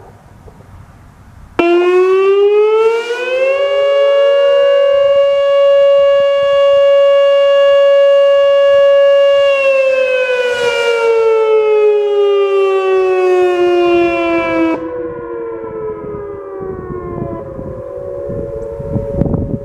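Whelen WPS-2805 electronic outdoor warning siren sounding its short alert. It cuts in sharply, rises in pitch over about two seconds, holds a steady wail for about six seconds, then slides down over about five seconds. Fainter siren tones carry on after it drops away.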